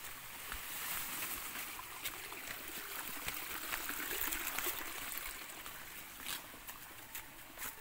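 A large bundle of cut banana leaves rustling as it is carried, with footsteps crunching on dry leaf litter. The rustle swells in the middle and eases off near the end.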